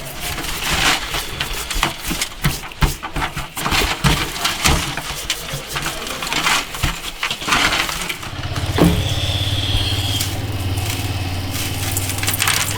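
Crackling and crunching of coarse salt being rubbed over a whole raw chicken by hand, many small irregular clicks. About eight seconds in, a steady low hum starts and runs on under the handling.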